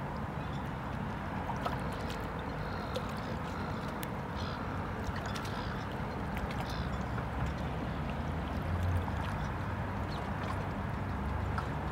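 Waterside marina ambience: a steady low rumble with scattered faint clicks, and a few short bird calls a few seconds in.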